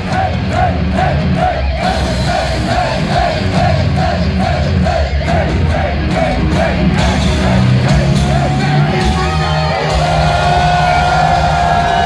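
Live heavy-metal band playing loudly, with a crowd yelling along. A quickly repeating melodic figure runs for the first seven seconds or so, then gives way to long held notes that waver in pitch.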